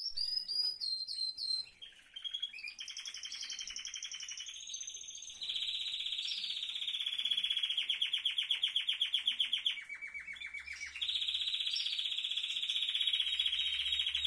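Caged finches singing: a few sharp repeated chirps at the start, then, from about three seconds in, one long unbroken song of fast rolling trills that drops lower for about a second near the ten-second mark.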